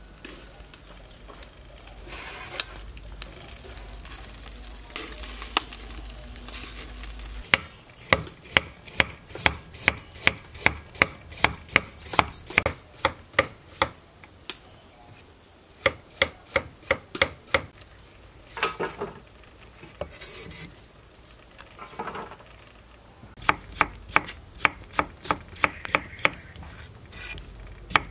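A cleaver chopping carrots and cucumber on a wooden cutting board: sharp, even knife strikes about two to three a second, starting about seven seconds in, with a few short pauses. Before that, a soft, steady scraping and rustling.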